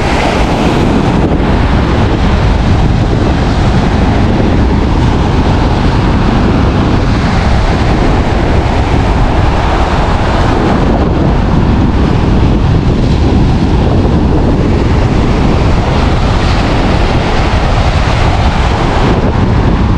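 Strong storm wind buffeting the microphone in a loud, steady rumble, with ocean surf breaking on the beach underneath.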